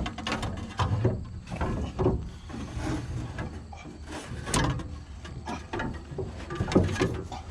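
Irregular clunks, knocks and scraping of heavy, awkward machine parts being handled and shifted, over a low steady hum.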